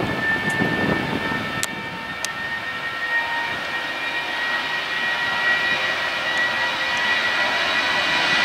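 Airbus A320's IAE V2500 turbofan engines whining steadily with a high tone during the landing roll just after touchdown, growing louder toward the end.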